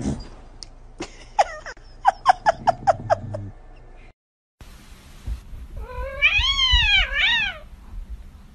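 Domestic cats meowing. First comes a quick run of short meows, about five a second. After a brief silence comes one long drawn-out yowl that rises and falls, followed by a shorter one.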